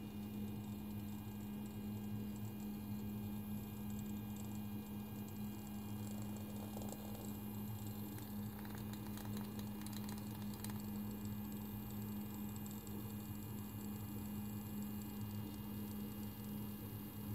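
A steady low electrical hum with a faint higher whine. A few faint ticks come about halfway through.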